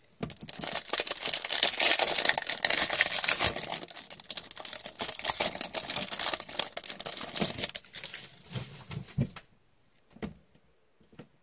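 Foil wrapper of an O-Pee-Chee Platinum hockey card pack being torn open and crinkled, loudest for the first few seconds. Then lighter rustling as the cards are slid out, dying away about nine seconds in.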